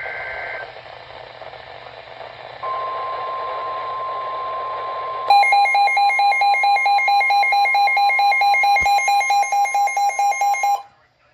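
NOAA Weather Radio alert signal: a short burst of warbling SAME header data at the start, then about two and a half seconds in the steady 1050 Hz Warning Alarm Tone. About five seconds in, a louder, rapid beeping alarm from the weather radio receiver joins it, and both cut off suddenly shortly before the end. The tone announces a severe thunderstorm warning.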